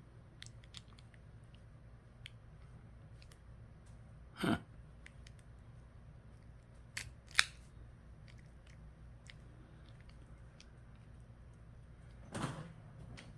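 Small sharp clicks of an ignition lock cylinder and its tumblers being handled and pushed together by hand, with a few louder knocks about four and a half, seven and twelve and a half seconds in, over a low steady hum.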